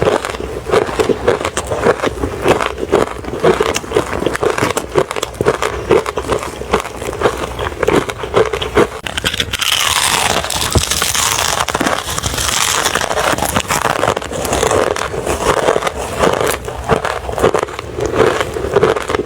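Close-up crunching of refrozen crushed ice being chewed, a rapid run of crisp cracks and crackles. About halfway through there are a few seconds of denser, brighter crunching.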